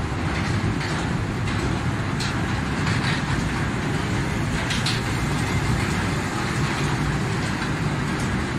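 Kiddie train ride running on its oval track: a steady low running noise from the wheels and drive, with a few light clicks.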